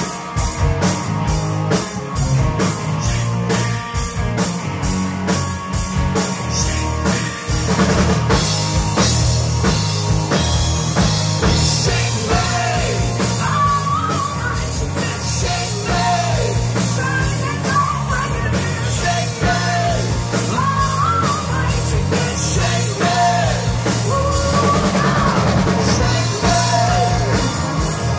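Live rock band playing loudly: distorted electric guitars, bass and a drum kit keeping a steady beat. A sung lead vocal comes in a little before halfway through.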